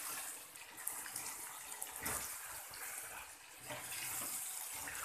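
Chicken pieces sizzling in a pan of oyster sauce while a wooden spatula stirs them and scrapes the pan, with a few light knocks of the spatula.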